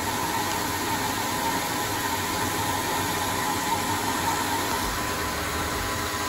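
Proto-Trak L2 CNC lathe running, spindle turning the propeller shaft while the turning insert takes a roughing cut along its taper: a steady machine hum and hiss with a faint constant whine.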